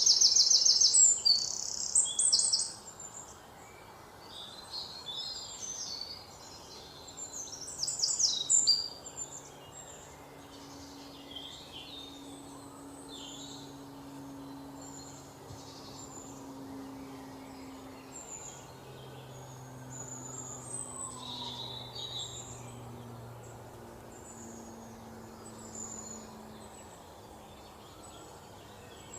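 Small birds chirping, with loud bursts of rapid high chirps at the start and again about eight seconds in, then scattered quieter chirps over a faint low hum.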